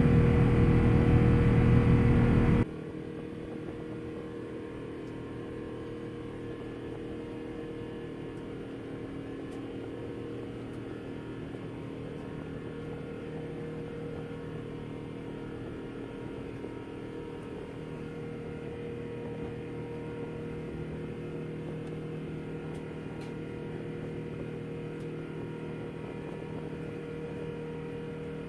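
Airbus A380 cabin noise during the climb: a loud, low, even rumble that cuts off abruptly about two and a half seconds in, leaving a much quieter steady drone with a constant hum.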